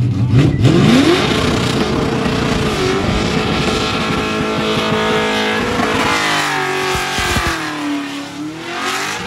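LS V8 in a Ford Fairlane, running a carburettor on E85, revving hard through a burnout. The revs climb sharply in the first second and are held high. Near the end they sag and then climb back up.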